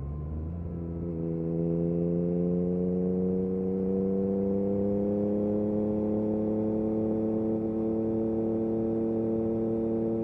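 Yamaha MT-09 SP's inline three-cylinder engine through an Akrapovic exhaust, pulling under steady throttle: its note climbs slowly and evenly in pitch, getting louder about a second and a half in.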